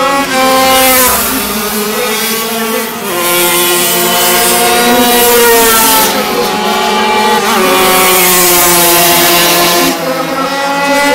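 Small racing motorcycles running at high revs as they race down the straight and past. The engine pitch climbs and then drops sharply at gear changes, about four times.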